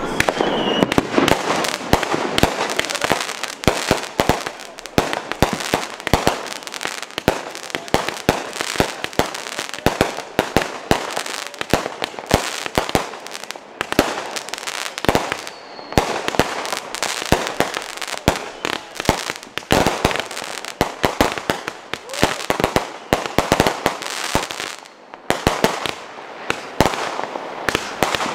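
Consumer fireworks going off in quick succession: a dense run of pops and crackling reports with no pause, plus two brief high whistles, one near the start and one about halfway through.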